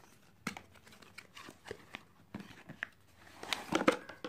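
Cardboard smartphone box being opened by hand: the lid and inner tray rub and the packaging rustles, with scattered small clicks and taps that grow busier and louder near the end.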